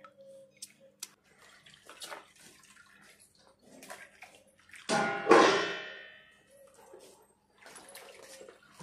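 Hands washing potato slices in a tub of water: small sloshes and drips, with one loud splash about five seconds in.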